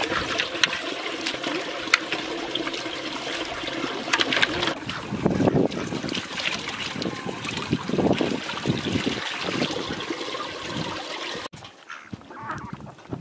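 Shallow stream water trickling, with splashing and sloshing as hands wash raw meat in a metal bowl and rice in a plastic bowl in the flowing water. About 11.5 s in it cuts to a quieter pond, with a few duck calls near the end.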